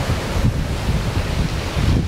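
Storm-driven surf breaking and washing against the shore under an approaching hurricane, with strong wind buffeting the microphone in uneven gusts.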